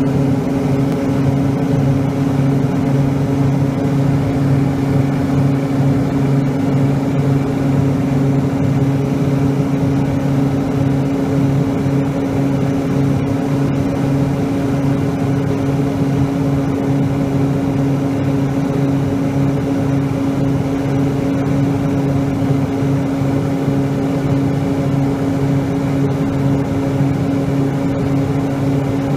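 Light single-engine propeller airplane in flight, heard from inside the cabin: the engine and propeller make a loud, steady drone that stays even throughout.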